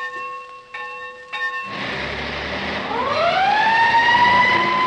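Recorded sound effects of a school bell ringing, which stops about a second and a half in. A fire engine follows: an engine rumble, then a siren that winds up in pitch from about three seconds in and holds a steady high tone.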